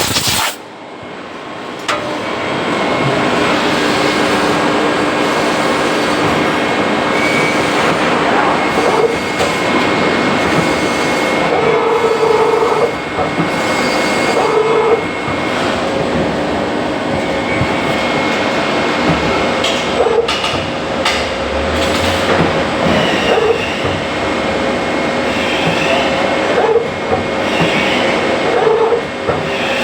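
CNC machine running: a steady mechanical noise with a steady whine, and short pitched chirps every few seconds.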